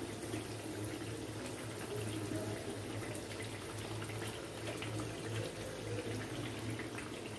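Potato masala bites shallow-frying in hot oil, a steady sizzle with fine crackling, while the golden-browning pieces are flipped with a fork. A low steady hum runs underneath.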